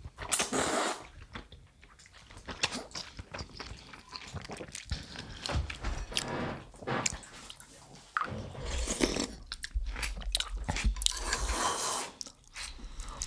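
Close-up eating sounds of udon noodles in miso soup: wet chewing with many small mouth clicks, and longer stretches of slurping about half a second in and again from about 8 to 12 seconds in.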